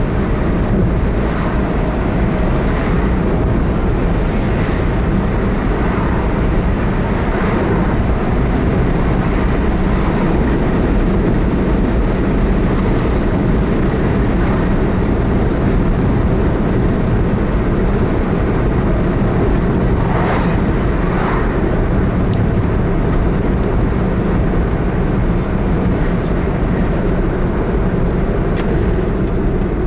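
Car driving along, a steady rumble of road and engine noise heard from inside the cabin, with a few faint brief swishes.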